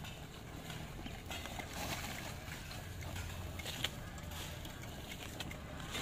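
Electric wheel motors of a home-built remote-control four-wheel-drive lawn mower chassis running with a low hum as it drives over dry grass and leaf litter, with scattered small crackles of leaves and twigs under the tyres.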